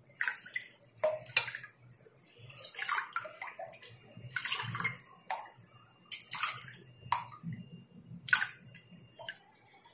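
Spiced pani puri water being scooped with a steel ladle from a glass bowl and poured into drinking glasses: repeated short pours and splashes of liquid, one ladleful after another.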